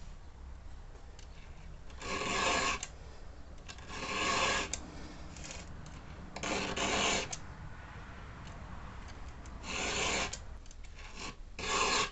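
Round chainsaw file being drawn across the cutters of a Husqvarna 61 chain to sharpen it: five rasping strokes of about a second each, roughly two seconds apart.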